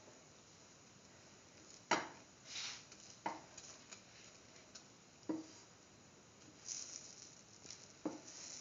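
Bread sandwich frying in an oiled pan with a faint sizzle, while a utensil knocks and scrapes against the pan four times, the loudest about two seconds in.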